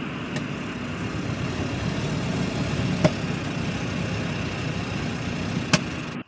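Car driving along a road, heard from inside the cabin with the driver's window open: steady engine and road rumble, with two sharp clicks, one about halfway through and one near the end. The sound cuts off abruptly at the end.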